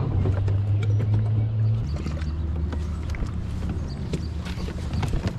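A steady low motor hum, dropping slightly in pitch about two seconds in, under scattered knocks and rattles of gear being handled on a rigged fishing kayak.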